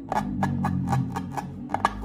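Slime being pressed and worked by hand, giving a quick run of sharp clicks and crackles about five or six a second, over background music.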